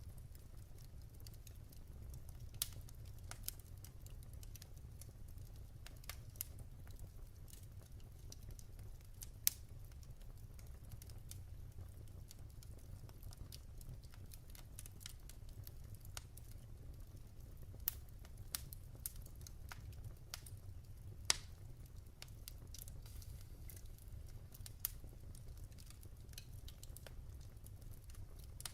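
Wood fire in a fireplace crackling faintly: irregular sharp pops and snaps every second or two over a low, steady rumble.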